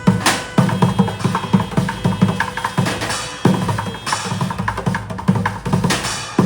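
Improvised drum kit of plastic jugs, pans and dishes played with sticks in a fast, dense rhythm: deep thuds from the jugs mixed with sharp metallic and clacking hits.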